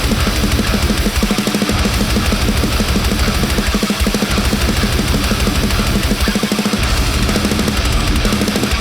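Heavy metal music: heavily distorted electric guitars with drums, playing a fast, driving rhythm at a steady loud level.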